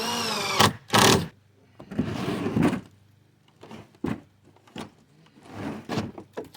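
A chainsaw being handled in its notched wooden slot in a homemade toolbox: a brief squeak at the start, a loud knock about a second in, then wood scraping and several lighter knocks and clicks.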